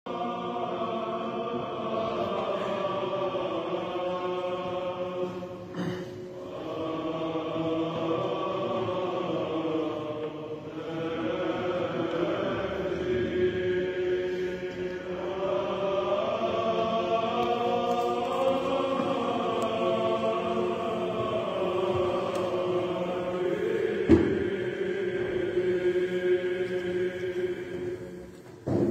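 Orthodox monks chanting in a church, with slow, long-held notes over a steady low drone. A single sharp knock about three-quarters of the way through.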